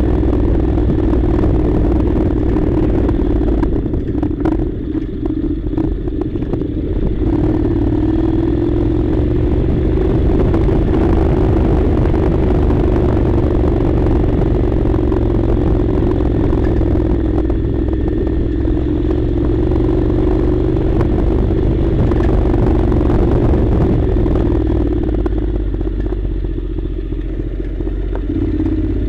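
Honda NC700's 670 cc parallel-twin engine running steadily while the motorcycle is ridden over rough unpaved ground, with rattling and clatter. The engine note eases briefly about four seconds in, then holds steady again.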